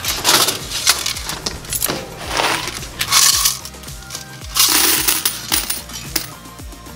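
Quarters pouring out of a washing machine's metal coin box into a bucket, clattering in several bursts as the box is tipped and shaken.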